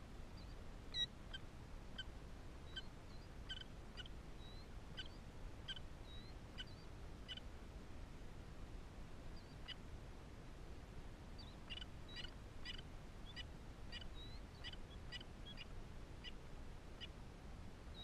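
Newly hatched killdeer chicks peeping faintly under the brooding parent: short, high peeps, some rising slightly, in an irregular string, a pause of a few seconds, then a denser run from about eleven to seventeen seconds in. One sharp click about a second in.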